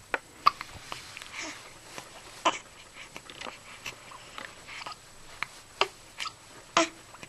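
Newborn baby hiccupping: a string of short, sharp hiccups, irregularly spaced, some with a brief squeak of voice.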